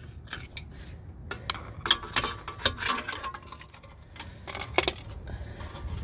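Screwdriver tips clinking and scraping against the worn rear parking brake shoes and their spring and clip hardware on a Jeep Grand Cherokee ZJ as the shoes are pried off. The clinks are irregular, with a busier cluster about two seconds in and another near the five-second mark, a few ringing briefly.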